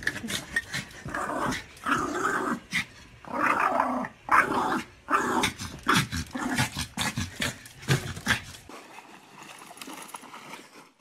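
Small long-haired dog growling and barking in repeated short bursts, stopping about nine seconds in and leaving much quieter sound.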